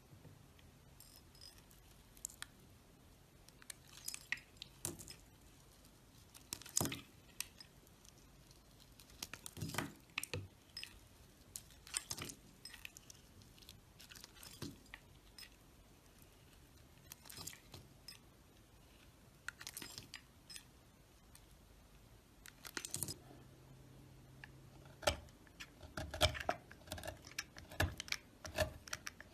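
A blade cutting and carving dry soap: scattered short, sharp crackles and scrapes in irregular clusters every second or two, coming thicker near the end.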